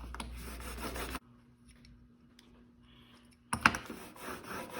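Steel single-bevel broadhead being rubbed back and forth on 800-grit sandpaper over glass: a gritty scraping that stops about a second in, then a sharp click about three and a half seconds in as the scraping starts again.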